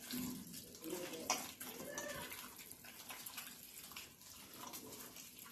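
Faint wet squishing of a bare hand kneading raw chicken pieces in a thick marinade in a stainless steel bowl.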